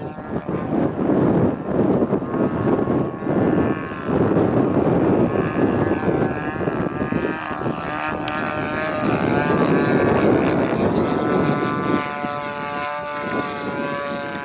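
30cc two-stroke engine and propeller of a Seagull Edge 540 radio-controlled aerobatic plane in flight, its note wavering up and down with throttle and manoeuvres, then holding a steadier note that sinks slightly in the last few seconds.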